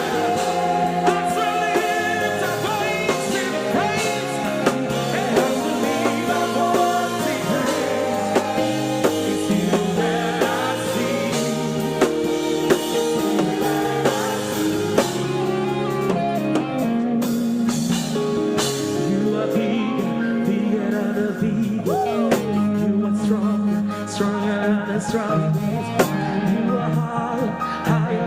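Gospel praise music: a band with drums plays on while voices sing.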